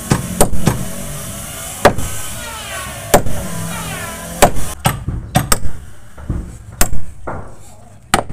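Hammer blows on a wooden boat hull, a dozen or so sharp knocks at irregular intervals, some close together and some a second or more apart.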